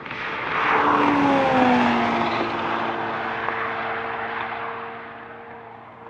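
A car passing at very high speed: a rush of engine and wind noise that swells quickly, drops in pitch as it goes by about a second in, then fades away.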